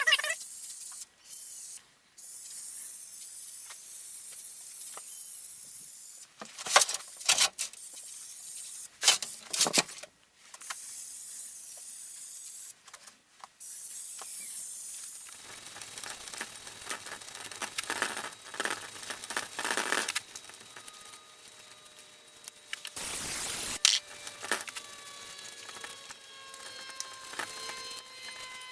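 Hand tools knocking and clicking on a golf cart engine's casing while its Phillips screws are worked loose, with a steady high hiss through the first half. Thin squeaky tones slide in pitch near the end.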